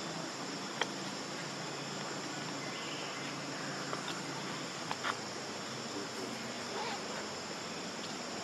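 Steady high buzzing of insects, with a few short sharp clicks: one about a second in, then a small cluster around four to five seconds in.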